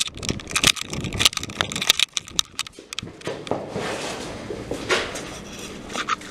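Quick footsteps on a hard floor, about three a second, mixed with camera handling knocks, easing into a softer rustling hiss after about three seconds.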